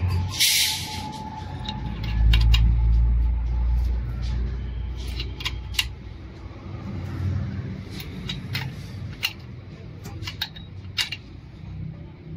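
Small metal parts and tools of a Toyota 2L diesel injection pump clinking and clicking at the bench, over a low rumble that swells about two seconds in. A short hiss sounds near the start.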